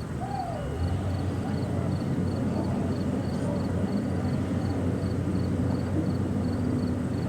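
Diesel engine of heavy demolition machinery running steadily, its hum getting louder about a second in, with a faint regular high ticking throughout.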